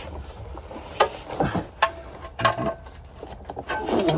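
A few separate sharp metallic clicks and knocks, spaced irregularly, from hand tools working on the car.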